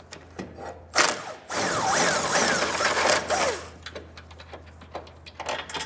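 Cordless impact wrench with a 21 mm socket hammering at a subframe bolt to break it loose and spin it out. A short burst comes about a second in, then a run of about two seconds. Light metallic clicks and clinks follow.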